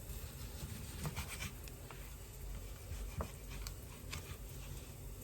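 Faint, scattered light scraping and a few soft clicks of kitchen utensils being handled while cooking.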